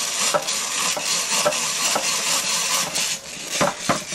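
Hand-cranked drill boring a screw hole into a pine board: a steady rasping of the bit cutting wood, with the gears clicking about two to three times a second.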